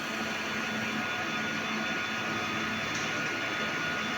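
Electronic equipment's cooling fans running steadily, an even whirring noise with a steady low hum and a thin high whine, as the repaired board is run on test.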